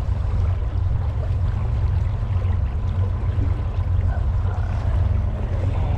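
Steady rush of a flowing river's current, with a strong low rumble under it.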